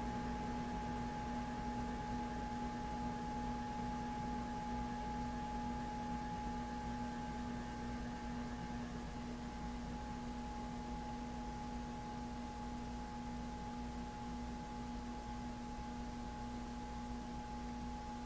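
Moss Marco Polo ceiling fan's CEC-made motor running with a steady electric hum of several fixed tones over a low rumble. It eases slightly quieter about halfway through.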